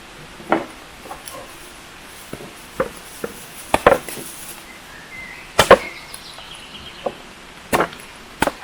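Chopping: about nine sharp knocks at uneven intervals, the loudest about five and a half seconds in.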